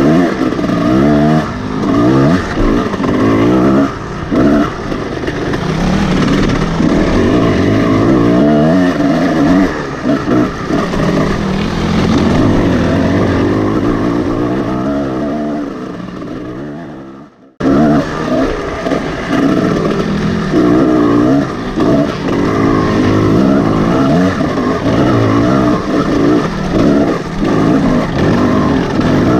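Kawasaki KX250 dirt bike engine revving, its pitch rising and falling continuously under the rider's throttle. A little past halfway it dies down and cuts out for a moment, then comes straight back.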